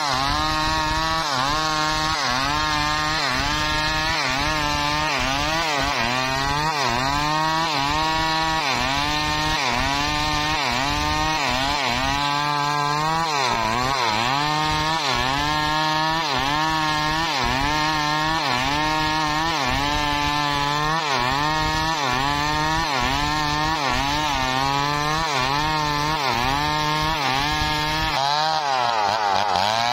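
Two-stroke chainsaw ripping lengthwise through a log under load, its engine pitch rising and falling about once a second as the bar works through the cut.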